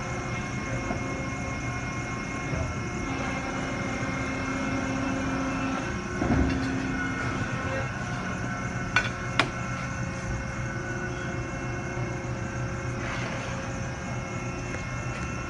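Servo-hydraulic CNC folding machine humming steadily, with a steady tone held for a few seconds and a thump about six seconds in. About nine seconds in come two sharp metallic clanks close together as a steel sheet is handled.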